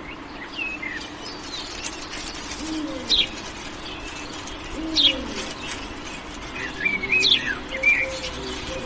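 Sparrow chirping: short, sharp chirps at irregular intervals, coming thickest near the end.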